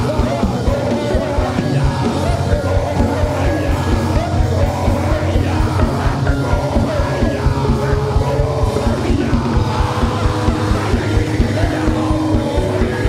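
Loud music with a fast, steady beat under a congregation praying aloud together, many voices shouting at once.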